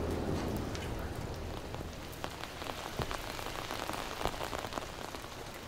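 Rain falling, with many separate drop hits close by that grow denser from about two seconds in. A low hum fades away in the first second.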